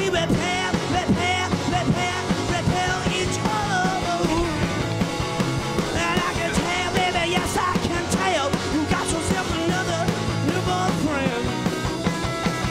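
Background music: a song with a sung vocal line over a full band.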